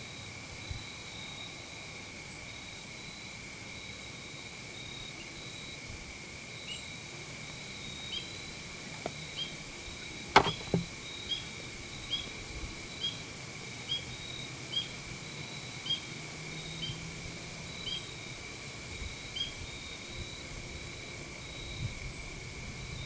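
A bow shot: one sharp crack of the released bow about ten seconds in, with a smaller knock half a second later. Behind it run the steady chirring of insects and a short high chirp repeated about once a second.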